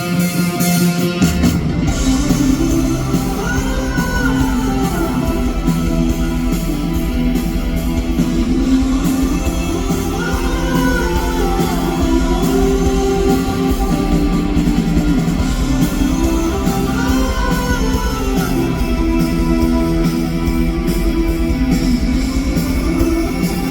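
Live rock band playing: electric guitars over bass and drums, with a melody line on top. The bass and drums come in fully about a second and a half in.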